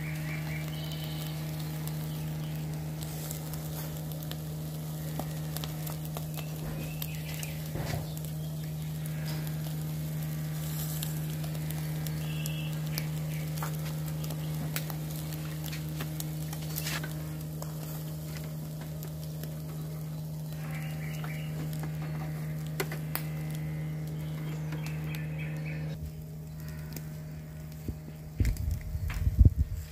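Charcoal and pine cones crackling as they burn in a mangal grill under chicken kebab skewers, with the meat sizzling. A steady low hum runs underneath and stops near the end, and a loud low rumble comes in just after.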